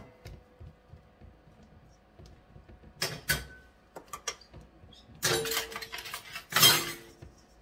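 A knock against a stainless steel mixing bowl about three seconds in leaves a short ring. Then comes a loud crinkling of a plastic bag of flour being handled, in two stretches near the end.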